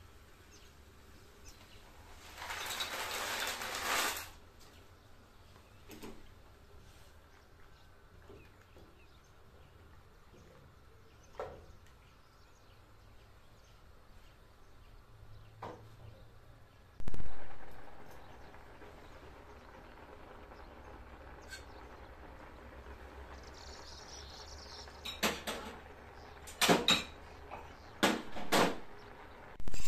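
Dry farfalle pasta poured into a pot of boiling water, heard as a short rushing clatter a few seconds in. After that comes a faint low steady hum with scattered small clicks, one loud sharp thump about halfway, and a run of sharp knocks near the end.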